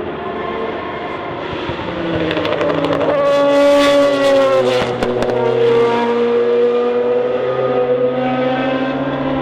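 Porsche 962 Group C race car's twin-turbocharged flat-six at full race speed, growing louder as it nears. A brief drop and pitch change comes about five seconds in, like a gear change, and then the engine pulls on with slowly rising pitch.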